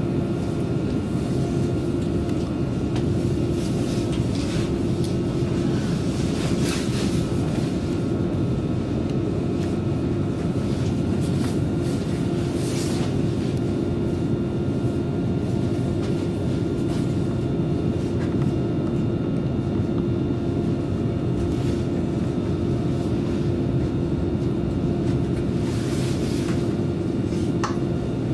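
Inside a CAF Class 331 electric multiple unit on the move: a steady rumble of wheels on rail under a constant low hum, with a few sharp clicks and knocks from the wheels crossing rail joints and points.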